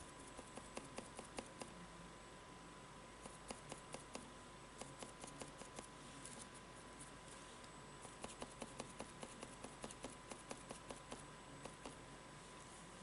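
Faint runs of quick, soft taps, about five a second with short pauses between runs: a round foam sponge dauber dabbing paint onto cardboard.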